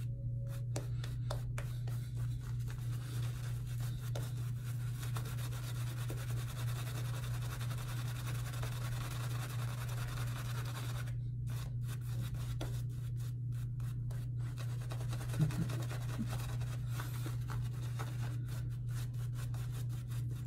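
Semogue 2000 boar-bristle shaving brush scrubbing lather into a few days' stubble on the cheeks and chin, a continuous soft bristly rubbing over a steady low hum.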